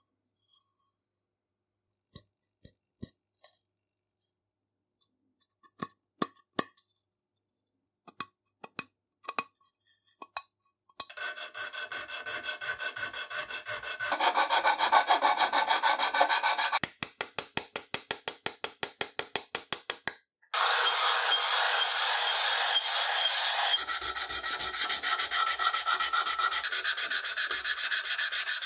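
A few scattered clicks and taps, then quick back-and-forth strokes of a hand file and a sanding block on a cast aluminium plate, taking off casting marks. The strokes come about five a second in the middle and blur into continuous rubbing near the end.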